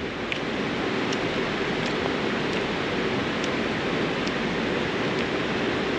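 Mountain stream rushing steadily over rocks, with a few faint high ticks about once a second.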